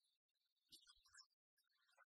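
Near silence, with only scattered faint ticks and specks.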